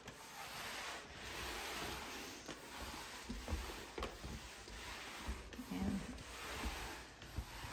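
Shark vac mop pad pushed back and forth over an oiled hardwood floor, a soft rubbing swish that swells and fades with each stroke as it soaks up standing oil spots.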